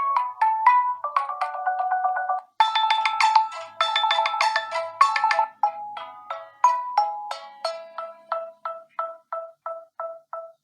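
Nokia 1 DS preset ringtones played one after another: a melody cuts off about two and a half seconds in and a new, busier tune starts, which then thins to a run of evenly repeated single notes.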